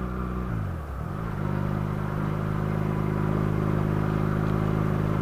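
Motorcycle engine running while riding. Its revs dip about half a second in, climb back a second later, then hold steady.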